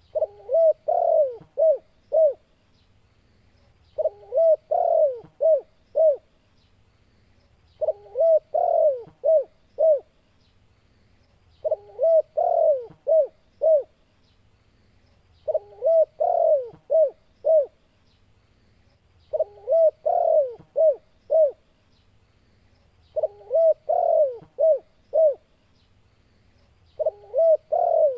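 Spotted dove (tekukur) cooing: a phrase of low coos that ends in three or four short, separate notes, repeated about every four seconds.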